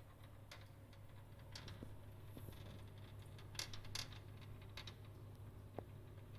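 Glow-worm boiler running with a low steady hum, and faint irregular rattling clicks every second or so, the strongest near the middle.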